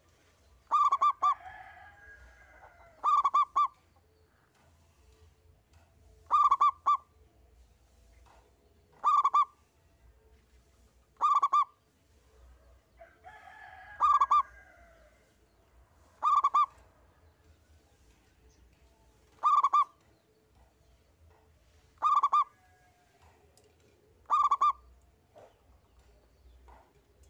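Zebra dove (perkutut) cooing: a short, clipped call phrase repeated about every two to three seconds, about ten times. Twice a fainter warbling chatter comes in between the phrases.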